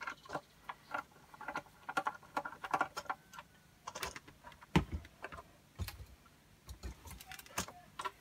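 Screwdriver backing a too-long screw out of a painted R2-D2 model part, with quick small clicks and rattles, then a few knocks as the part and tools are handled, the loudest about five seconds in.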